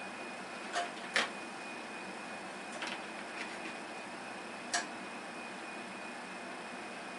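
A few short, sharp clicks and taps, the loudest about a second in, over a steady hiss with a faint thin high tone.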